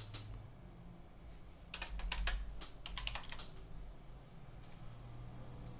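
Typing on a computer keyboard: several short runs of key clicks, spread between about one and five seconds in.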